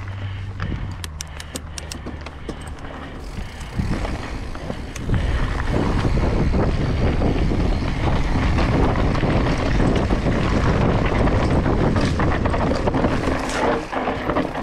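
Mountain bike rolling down a dirt trail: tyres on dirt and the bike rattling, with wind rushing over the microphone. It gets much louder about five seconds in as the bike picks up speed.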